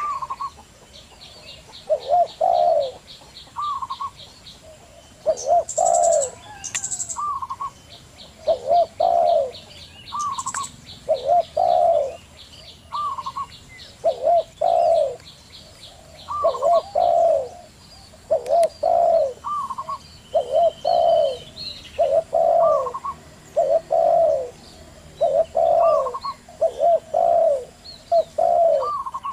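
Zebra doves and spotted doves cooing over and over, a short phrase every second or so, against a fast, high ticking trill and a few brief high chirps from other small birds.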